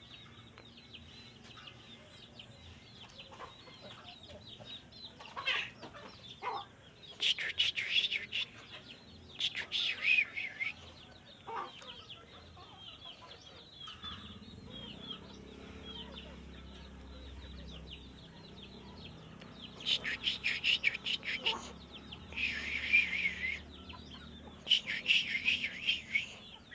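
Yellow-vented bulbul singing in several short bursts of rapid chattering notes, louder about a quarter of the way in and again through the last quarter, over fainter chirping.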